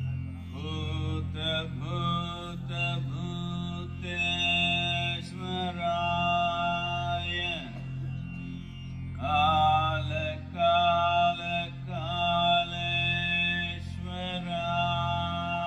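Devotional music: a sung mantra chant over a steady low drone.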